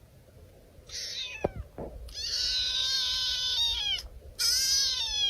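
Domestic cat meowing repeatedly: a short meow about a second in, then a long drawn-out meow that drops in pitch at its end, and another meow near the end. A couple of brief knocks come between the first two meows.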